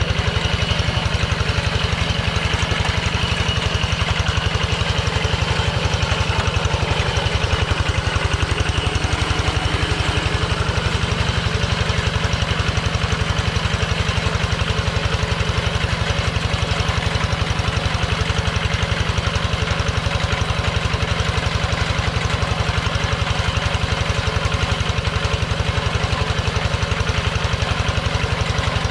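Kubota two-wheel hand tractor's single-cylinder diesel engine running at a steady, even beat under load as it pulls a plough through paddy mud.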